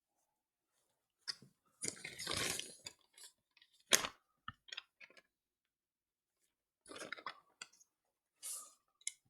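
Handling noises: a brief rustle, a sharp click and a few scattered small clicks and crackles.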